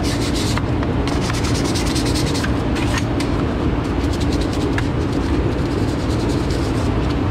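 Stiff bristle brush scrubbing the soaped arm of a robotic milking machine, the strokes thick at first and then scattered, over a steady mechanical hum of barn machinery.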